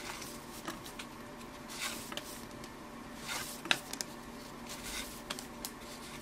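1983 Topps baseball cards being slid one behind another in the hands, making soft, brief papery swishes and an occasional small click, over a faint steady hum.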